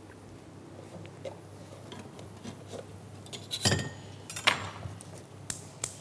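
Kitchen dishes, utensils and a small saucepan being handled on a worktop: a few scattered clinks and knocks, the loudest about three and a half and four and a half seconds in.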